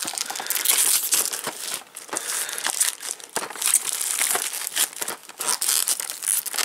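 Plastic packaging on a boxed model train car crinkling and crackling as it is handled and unwrapped by hand, a dense run of sharp crackles.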